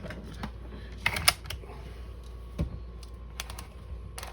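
Scattered light clicks and taps from handling the shotgun's parts and tools at the start of taking it apart. The loudest is a close pair about a second in.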